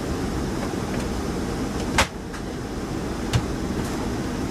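Steady low mechanical rumble, with a sharp click about two seconds in and a lighter knock a little over a second later.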